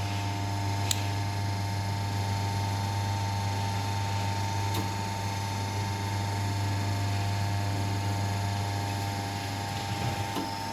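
Hydraulic rebar cutting-and-bending machine's electric motor and pump running with a steady hum, with a couple of faint clicks.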